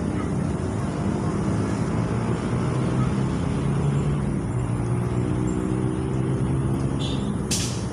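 A motor engine running steadily, a low drone whose pitch drifts slowly up and down. A short sharp click near the end.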